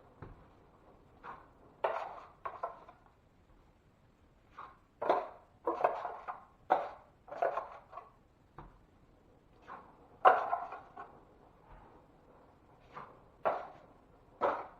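Hand tools working on a drywall patch: an irregular series of short scrapes and knocks, about a dozen, with brief pauses between them.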